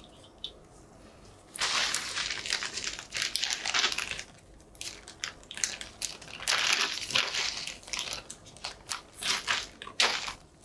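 Plastic zip bag of size 00 gelatin capsules crinkling and rustling in short bursts as it is handled and opened, starting about one and a half seconds in.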